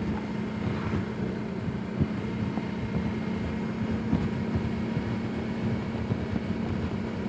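Suzuki V-Strom DL650A's V-twin engine running at a steady speed while riding, a constant drone over road noise.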